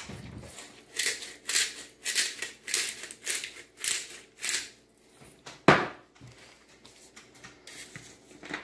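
Disposable black pepper grinder being twisted, grinding peppercorns in about seven short rasps at roughly two a second. A single sharp knock follows a second later.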